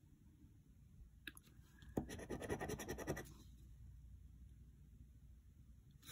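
A large coin scraping the coating off a scratch-off lottery ticket: a light tap, then about a second of quick back-and-forth scratching strokes about two seconds in.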